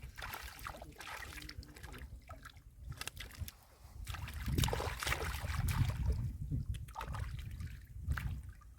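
Shallow muddy water sloshing and splashing in irregular strokes as hands work through it to catch fish, with a low rumble underneath from about halfway through.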